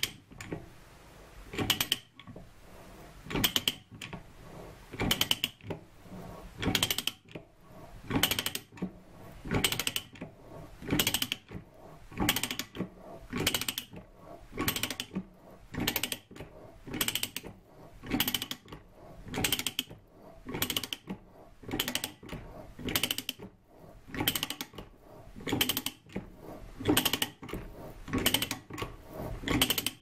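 Ratcheting pipe threader cutting a half-inch BSP thread on an aluminium bar: the pawl clicks in a short burst on each swing of the handle. The strokes come about every second and a half at first, then quicken to about one a second.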